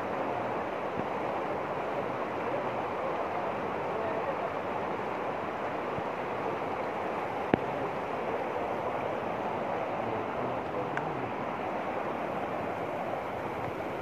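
Fast river rapids rushing over rocks: a steady, even rush of water. A single sharp click about halfway through.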